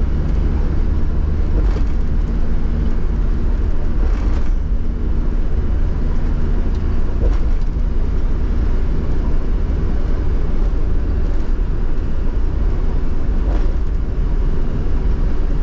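Steady low road rumble and engine hum of a car cruising at speed, heard from inside the cabin. A few light knocks come through as the tyres cross the elevated expressway's expansion joints, which are still open and gapped.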